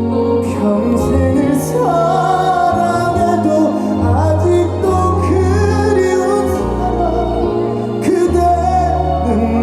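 A slow ballad performed live through a PA: a singing melody line held and gliding over sustained bass and backing chords.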